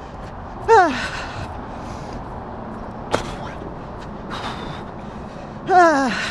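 A woman runner's breathy, falling-pitch grunts from hard exertion, twice: about a second in and again near the end, over her steady breathing and movement noise. A single sharp click comes about three seconds in.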